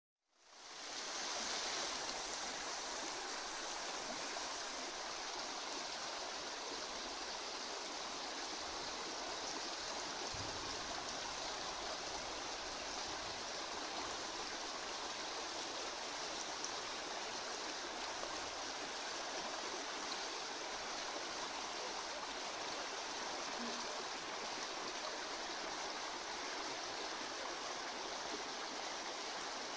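Steady rush of water moving in a goldfish holding tank, fading in over the first second or so.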